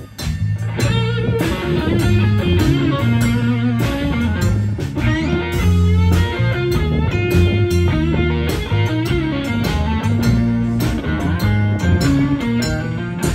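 Live blues band playing an instrumental passage: electric guitar lines over electric bass and drum kit.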